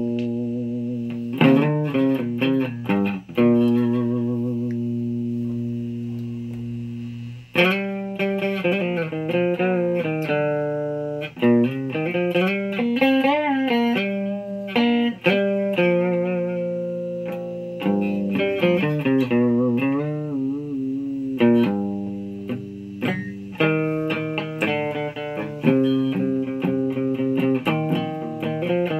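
Electric guitar played through a Fuzz Face fuzz pedal running on a nearly dead battery: held notes, several bent up and down in pitch, with fresh notes picked every second or two.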